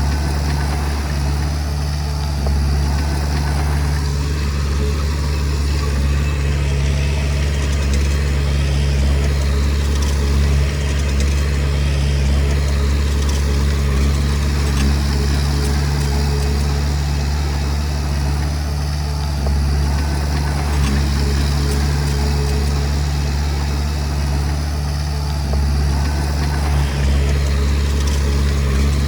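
Komatsu D20P bulldozer's diesel engine running steadily, with a deep, even drone.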